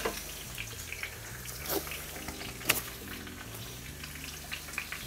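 Chicken pieces frying skin side down in hot olive oil, crackling steadily with many small scattered pops and one louder pop about halfway through. Faint background music runs underneath.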